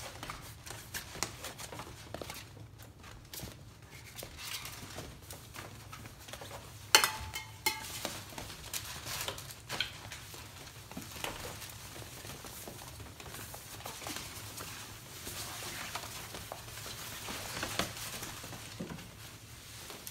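Puppies playing on a hard floor: many small claw clicks and scrabbling, with a fabric play tunnel rustling. A sharp knock with a brief ring about seven seconds in is the loudest sound.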